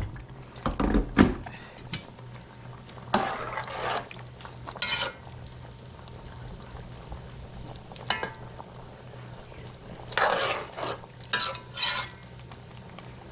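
A spoon stirring and scraping in a pot of chicken stew, with knocks and clinks against the pot in several short bursts, over a steady low hum.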